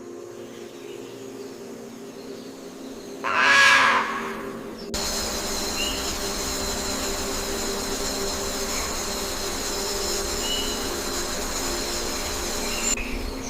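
Forest ambience: a single loud, harsh bird call about three seconds in. From about five seconds in comes a steady high insect buzzing over an even hiss, which stops shortly before the end.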